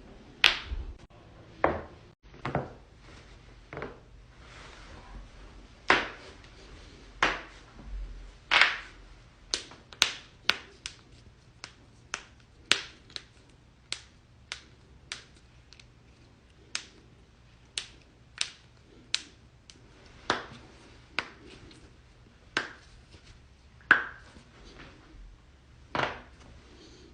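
A run of sharp joint cracks and pops from a person's joints, about thirty single clicks spaced irregularly from half a second to a couple of seconds apart. Some are much louder than others.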